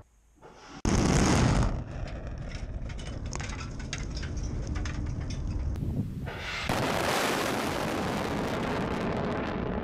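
Launch of an anti-ballistic-missile interceptor from its ground launcher: a sudden loud blast about a second in, then a continuing rumbling roar with scattered crackles. The roar dips briefly and comes back stronger and steady about seven seconds in.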